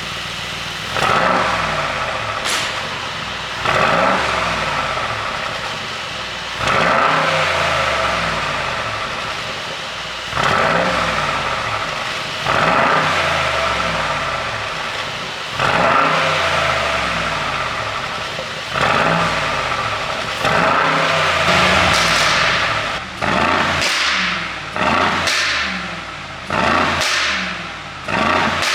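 2021 Mercedes-AMG G63's twin-turbo V8 revved repeatedly, each rev falling away over a couple of seconds, then short quick blips in the last few seconds. Sharp pops and crackles come from the exhaust as the revs drop, the sound of a pop-and-crackle tune.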